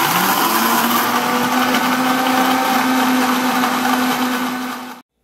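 Mondial countertop blender running at full speed, grinding fresh green corn kernels with milk into a pulp. The motor spins up briefly at the start, holds a steady hum, and cuts off abruptly near the end.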